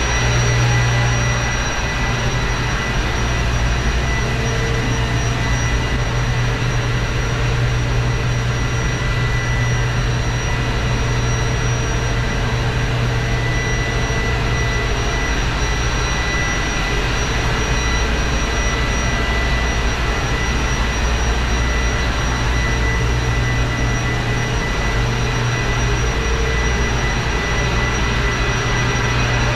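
Cruise ship engine-room machinery running steadily and loudly: a deep hum with several thin high whines held over it.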